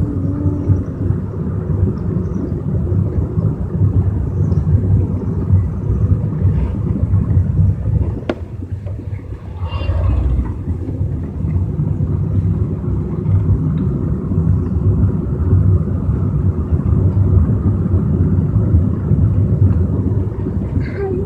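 A steady low rumble that dips briefly about nine seconds in, with a short higher sound around ten seconds.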